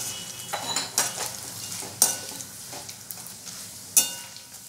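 Slotted steel spatula scraping and knocking against a steel kadhai, about once a second, as peanuts, coconut pieces and cashews are stirred in hot oil, over a steady sizzle of frying.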